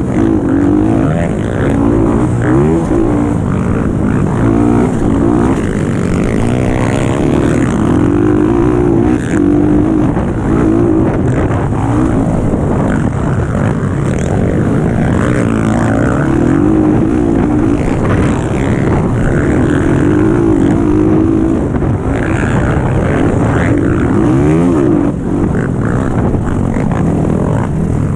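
Dirt bike engine at race pace, revving up and falling back again and again as the rider accelerates and shifts, loud and close, with wind noise over the microphone.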